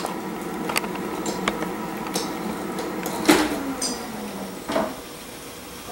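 Air fryer running with a steady fan whir, then clicks and a sliding scrape as its basket drawer is pulled out, the loudest about three seconds in.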